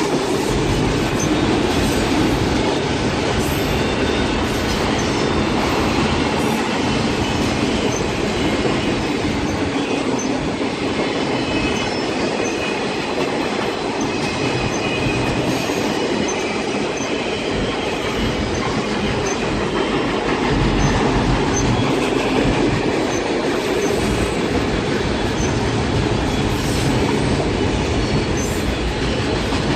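A train rolling by on the rails: a steady, continuous rumble of its cars that holds at an even level throughout.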